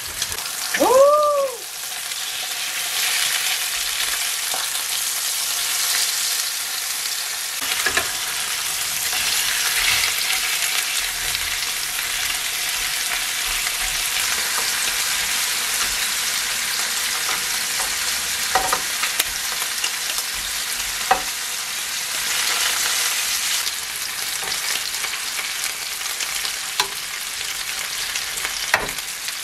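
Pork belly and pork neck slices sizzling in a hot grill pan: a steady frying hiss. There is a short rising-then-falling pitched sound about a second in, and a few sharp clicks later on as metal tongs touch the pan while the meat is turned.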